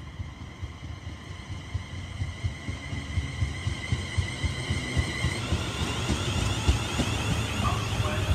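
London Northwestern Railway electric multiple unit approaching and running past at speed: a deep rumble of wheels on rail that grows louder, with a thin high whine that starts to rise about halfway through as the train draws alongside.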